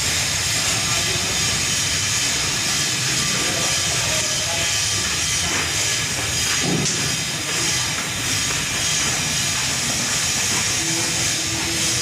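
A steady loud hiss, with a few faint, brief voice-like sounds in it.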